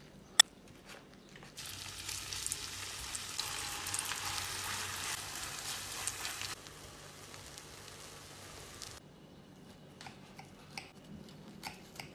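Egg, lavash and sausage mixture sizzling and crackling as it fries in a pan, loudest in the first few seconds and dying down about three-quarters of the way through. A single sharp click comes just before the sizzling starts, and a few light clicks come near the end.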